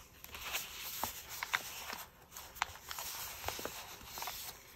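Hands pressing and smoothing a paper piece onto a journal page to make it stick: soft paper rustling with scattered light taps and clicks.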